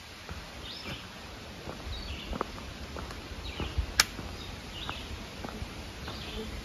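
A hiker's footsteps on a dirt and rock forest trail, with birds chirping in short calls now and again. One sharp click about four seconds in is the loudest sound.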